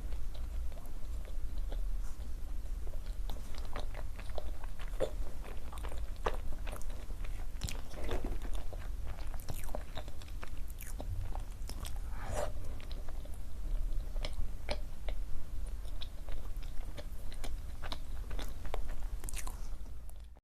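A person biting and chewing food close to the microphone, with frequent small, irregular mouth clicks and smacks.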